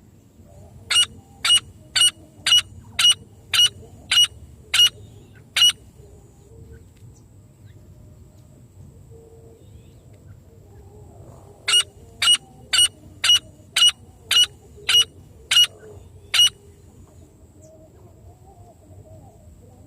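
Francolin (teetar) calls: two runs of nine sharp, high, loud notes about half a second apart, with a pause of about six seconds between the runs. The notes space out slightly toward the end of each run.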